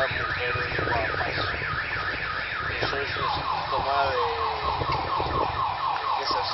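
Car alarm sounding in rapid repeated falling sweeps, about four a second, switching to a lower-pitched series of sweeps about three seconds in.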